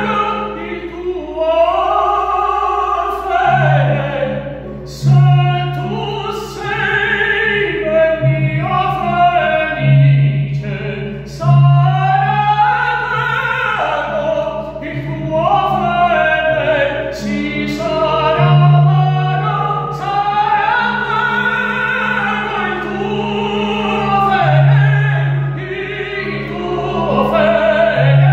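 A man singing an opera aria in full classical voice with vibrato, over an instrumental accompaniment whose low notes hold and change in steps.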